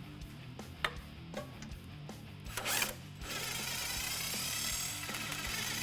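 A few light tool clicks, then a power tool runs steadily for about three seconds, spinning out a bolt on the exhaust hanger. Background music plays under it.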